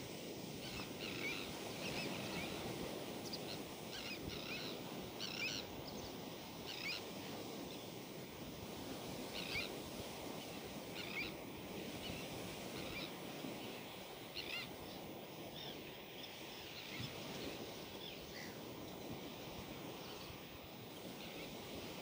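Sea surf washing on a sandy shore as a soft, steady hiss, with brief high chirps every second or two.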